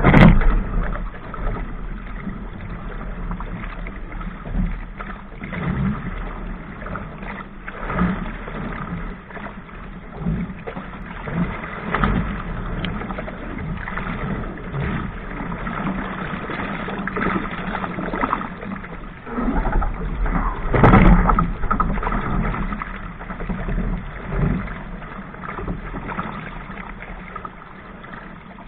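Small sailing dinghy's hull slapping through choppy waves, with water rushing and splashing against it at irregular intervals; the biggest splashes come right at the start and about two-thirds of the way through.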